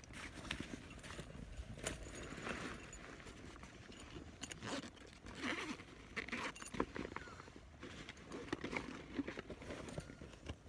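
A MOLLE tactical backpack being handled: fabric rustling and straps and buckles clicking irregularly, with one sharper click about two seconds in.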